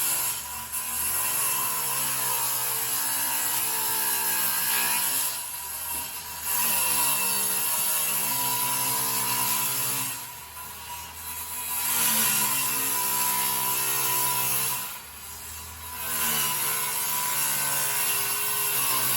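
Electric power tool motor working wood in repeated runs, with short lulls about every five seconds where the motor sound drops and its pitch bends before it comes back up to full speed.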